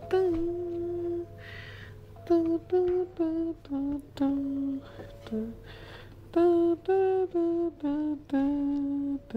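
A woman humming a slow, lullaby-like tune: a string of held notes, each with a short gap after it.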